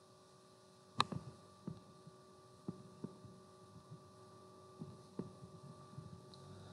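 Faint steady electrical hum with several thin steady tones, broken by about six sharp, scattered clicks. The first click, about a second in, is the loudest.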